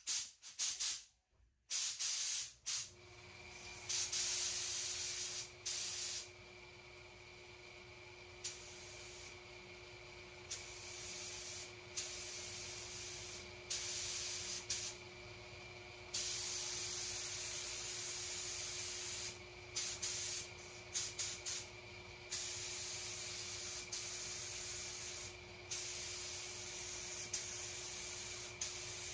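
Air spray gun with a top-mounted cup spraying red paint, a hissing rush of air and paint that starts and stops with each trigger pull, in repeated runs from under a second to several seconds long. A steady hum runs underneath from about three seconds in.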